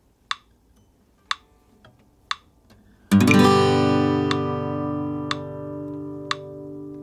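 Acoustic guitar G chord strummed once about three seconds in, ringing out and slowly fading, over a click track ticking evenly about once a second.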